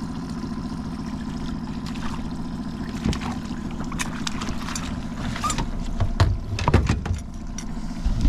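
Honda outboard motor running steadily at trolling speed. Water splashes and short knocks as a kokanee is netted and the net is lifted into the boat, loudest about six to seven seconds in.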